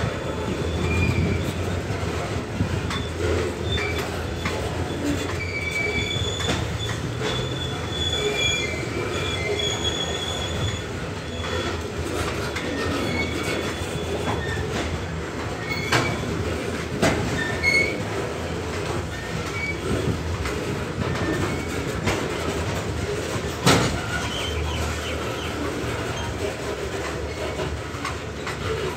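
Coal train's hopper wagons rolling past: a steady rumble of wheels on rail, with high wheel squeals that come and go, mostly in the first half. A few sharp clacks sound as wheels cross rail joints, the loudest about 24 seconds in.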